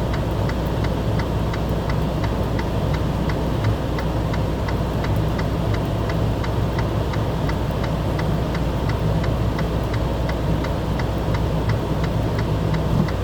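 Steady low vehicle rumble, heard from inside the cab, with an even ticking at about three a second.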